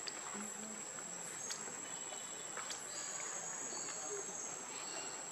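Steady high-pitched insect chorus, a continuous shrill drone, with a few faint small ticks.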